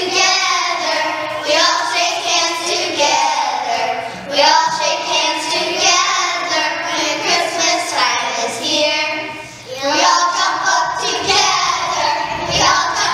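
A group of children singing a song together, with short breaks between phrases about four seconds and about ten seconds in.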